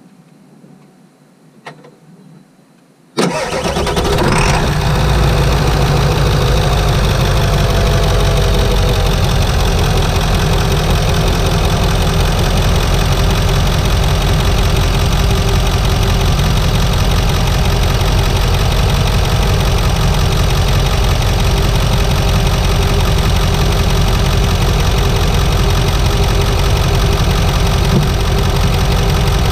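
7.3-litre Powerstroke turbodiesel V8 starting about three seconds in, flaring briefly, then settling into a steady idle, heard from inside the engine bay.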